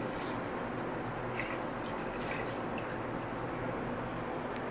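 Milk pouring in a steady stream into a stainless-steel pot of boiled rice.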